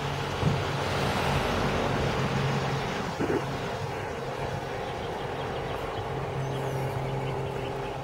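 An engine running with a steady hum, under a rushing sound that swells over the first few seconds and then eases.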